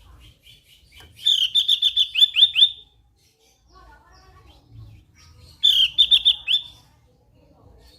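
Javan grey-throated white-eye (opior jawa) singing: two quick runs of sharp, repeated high notes, each note sweeping downward. The first run has about eight notes and the second, near the end, is shorter.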